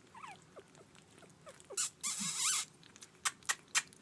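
Three-week-old puppies making short, high, falling squeaks while eating puppy mush, with a brief noisy snuffling burst about two seconds in and a few sharp wet smacking clicks near the end.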